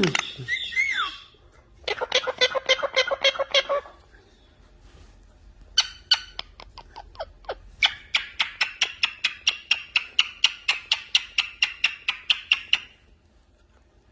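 Parrot squawking and chattering: a short gliding squawk at the start, then about two seconds of rapid buzzing chatter, then after a pause a long run of fast, even clicking calls, about five a second.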